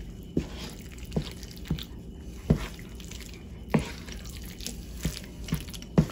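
Wooden spoon stirring raw chopped chicken through thick, wet curry paste in a frying pan: squelching, with about eight irregular knocks of the spoon against the pan.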